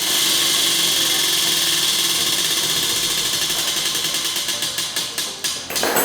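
A spinning prize wheel's pointer clicking rapidly against its pegs, the clicks slowing and spreading out until the wheel stops near the end.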